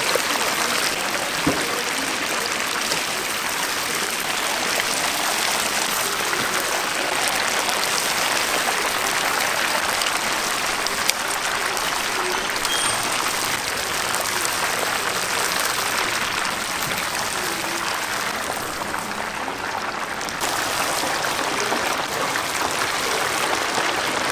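Chicken deep-frying in hot oil in a cast-iron cauldron: a dense, steady sizzle and crackle. It thins out briefly about eighteen seconds in, then comes back.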